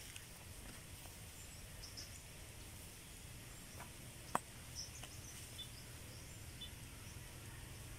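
Quiet outdoor ambience: a steady low hum, scattered faint high chirps, and a single sharp click about four and a half seconds in.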